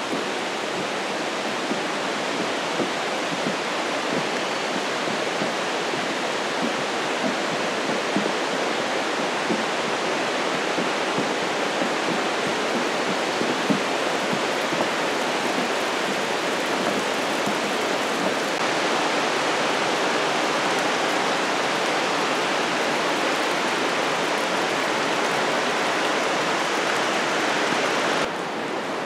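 Rushing water from a creek's cascades and waterfall, a steady even hiss; it drops slightly in level just before the end.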